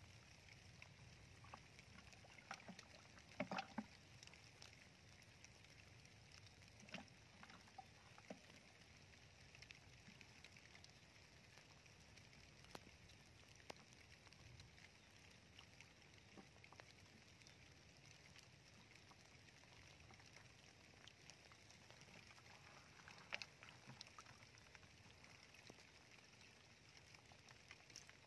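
Faint trickle of shallow water flowing through a muddy, grassy channel, with a few short sharp sounds, the loudest about three and a half seconds in and again near twenty-three seconds.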